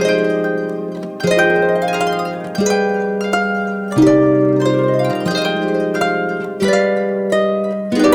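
Background music on plucked strings, a harp-like melody over chords, with a new chord struck about every second and a third.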